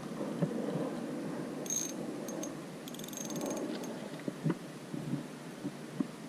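Shimano Sienna 500FD spinning reel giving a short run of rapid clicking about three seconds in, over a steady rushing background noise, with a few soft knocks near the end.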